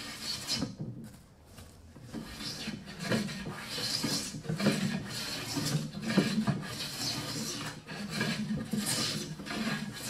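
Hand tool scraping along the edge of a pecan wood panel: repeated rasping strokes, roughly one a second, after a quieter lull in the first couple of seconds. This is fine flushing of the veneered edge down to the maple banding.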